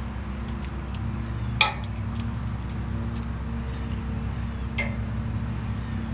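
Tiki Toss ring-toss game's metal ring clinking against metal as it swings on its string: a sharp clink about a second and a half in, and a second, lighter one near five seconds. A steady low hum runs underneath.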